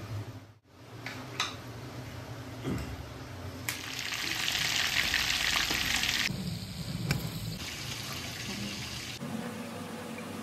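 Chicken wings frying in hot oil: a loud, even sizzling hiss for about two and a half seconds, then a quieter sizzle for about three more.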